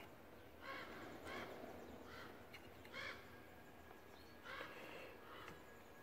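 Faint bird calls outdoors: a series of short calls, about six in all, coming every half second to a second and a half.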